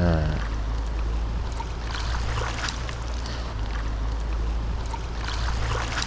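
Steady rush of flowing stream water with a low rumble underneath.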